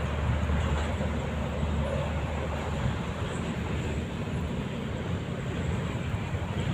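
Steady low rumble of vehicle traffic crossing the bridge overhead, with a faint high-pitched tone running under it.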